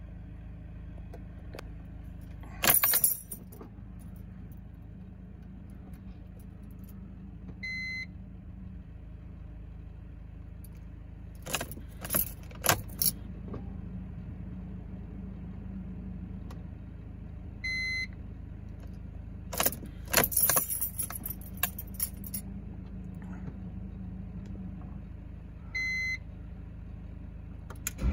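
Car keys jangling and the ignition key being handled and turned in a BMW 320d E46 with its diesel engine not yet running, in bursts about three, twelve and twenty seconds in. A short electronic beep sounds three times, several seconds apart, over a steady low hum.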